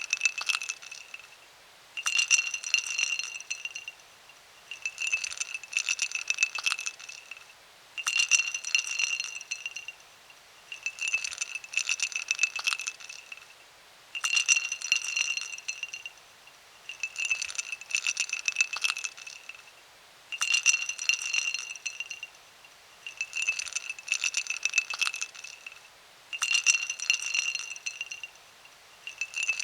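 Ice cubes clinking and rattling in a glass, the glass ringing with each knock. The sound comes in bursts of about two seconds, repeating roughly every three seconds.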